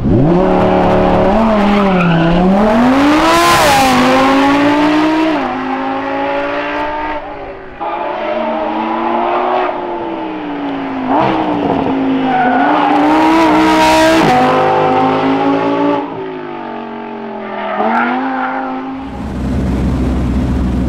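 Lamborghini Huracán Sterrato's V10 engine revving hard under acceleration, its pitch climbing and dropping back again and again through a series of gear changes. Shortly before the end it gives way to a low, steady rumble.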